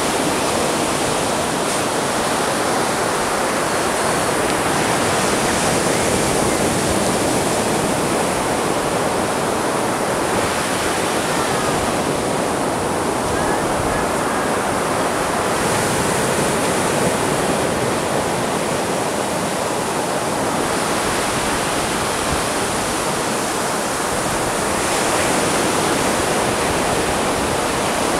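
Ocean surf breaking on a sandy beach: a continuous wash of foaming water that swells and eases every several seconds as each wave breaks and runs up the shore.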